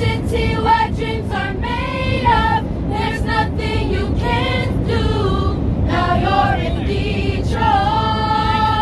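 Youth choir singing unaccompanied, young voices carrying a melody in phrases with long held, wavering notes, over the steady low drone of a jet airliner's cabin.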